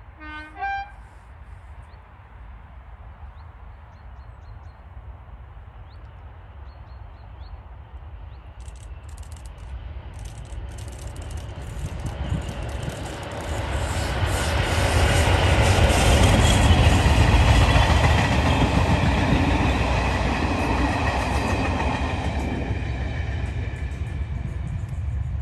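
Two Class 20 diesel locomotives, English Electric eight-cylinder engines, approaching and passing while hauling coaches. The sound builds from about eight seconds in, is loudest through the middle, and is fading but still present at the end.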